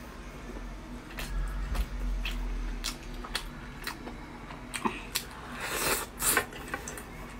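Close-miked eating sounds: chewing and wet mouth smacks with scattered sharp clicks as sauce-dipped slices of meat are eaten with chopsticks.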